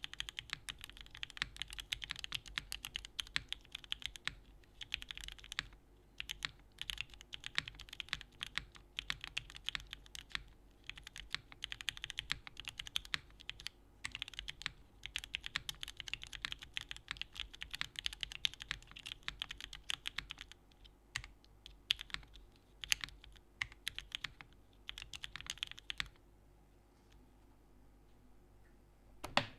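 Fast, steady typing on a Pluto by Saab mechanical keyboard built with O-ring mounting, an aluminium plate, no foam, Gateron Oil King linear switches and Domikey Hush keycaps. The keystrokes thin out after about twenty seconds and stop a few seconds before the end, with a couple of single clicks at the very end.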